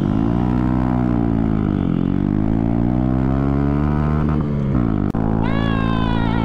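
Motorcycle engine accelerating hard through the gears, the revs climbing and then dropping at a gear change about two seconds in and again near five seconds. A high, slowly falling whine comes in near the end.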